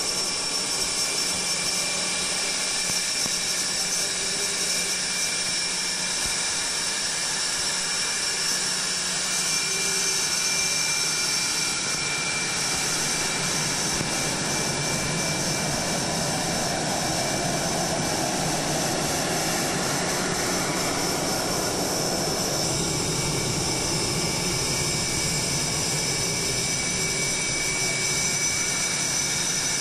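F/A-18 Hornet jet engines whining at taxi power: a steady high-pitched whine over a rushing hiss, growing a little fuller about halfway through.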